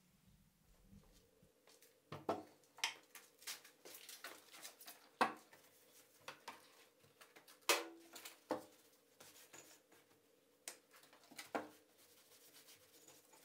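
Irregular clicks, knocks and rubbing as a greasy milling-machine spindle is handled, turned and wiped down with a rag by gloved hands. A few sharper knocks stand out among the softer rubbing.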